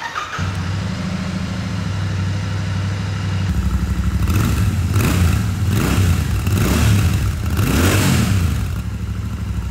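Royal Enfield Shotgun 650's 648 cc parallel-twin engine starting up and idling, then revved in a series of quick throttle blips from about three and a half seconds in before settling back to idle near the end.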